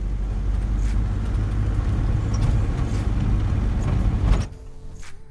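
A large engine running with a loud, steady rumble, typical of heavy construction machinery. It cuts off abruptly about four and a half seconds in.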